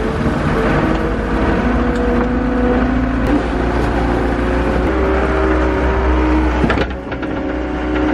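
Skid steer loader engine running steadily while the machine works, its pitch shifting a few times.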